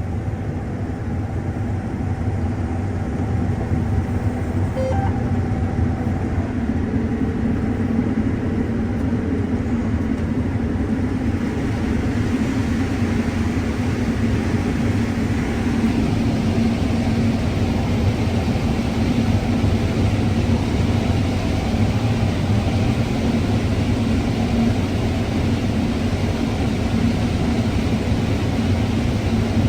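Combine harvester running steadily while harvesting corn, a constant engine and machinery drone that takes on more hiss about a dozen seconds in.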